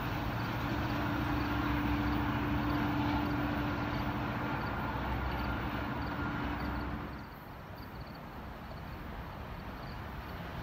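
Amtrak Pacific Surfliner passenger train passing close under a diesel locomotive: a steady, loud rumble with a held humming tone. About seven seconds in it drops suddenly to a quieter, more distant rumble of a second train, the Southwest Chief, approaching behind two diesel locomotives.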